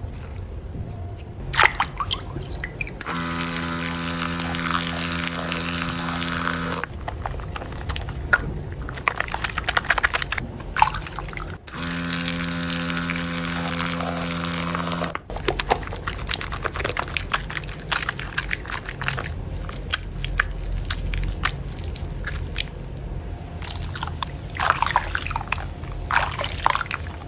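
Slime squishy toy being squeezed and kneaded, with sticky, wet crackling and popping throughout. Twice a steady buzzing tone runs for about three and a half seconds.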